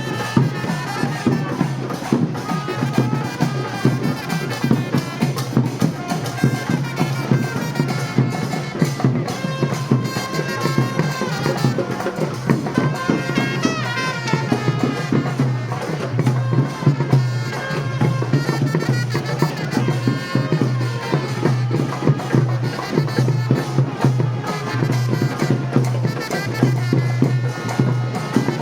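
Traditional Sri Lankan procession music: a drum ensemble playing a fast, dense rhythm, with a shrill reed pipe playing a wavering melody over it and a steady low drone beneath.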